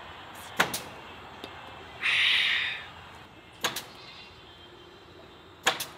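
Pneumatic staple gun, driven by a portable air compressor, firing staples through hardware cloth into a wooden frame. There are three shots about every two and a half seconds, each a sharp double crack. The loudest sound is a hiss of about a second, a little after the first shot.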